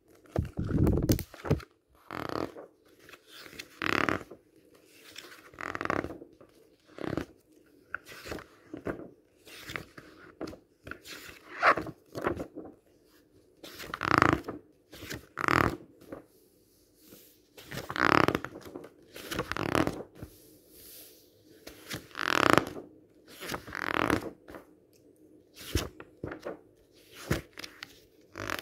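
Large paper book pages being turned one after another, each turn a swishing rustle and flap of paper, about one every one and a half to two seconds.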